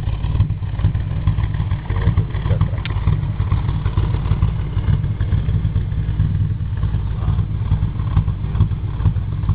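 Engine idling through a Silens aftermarket exhaust, a steady low, uneven pulsing exhaust note.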